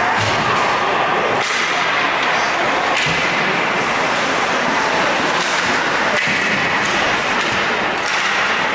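Ice hockey play on a rink: sticks slapping the puck and skates scraping the ice, several short sharp cracks over steady arena noise.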